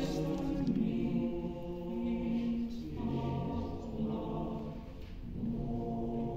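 A choir singing slow, held chords, the harmony changing about three seconds in and again near the end after a brief softening.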